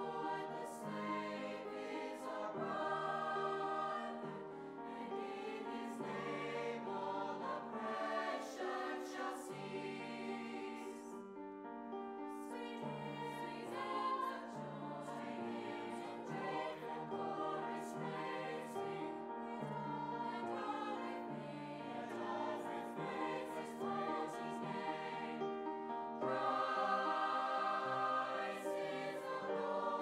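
Mixed high-school choir of male and female voices singing in harmony, swelling louder about four seconds before the end.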